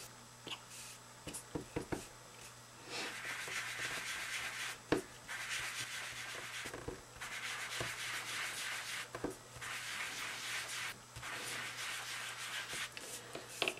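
An ink sponge rubbed over envelope paper in repeated strokes of a second or two, applying ink. A few light clicks and taps come first, and there is a single knock about five seconds in.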